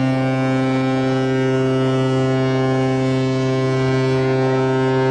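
A ship's horn sounding one long, steady blast: a deep note with many overtones.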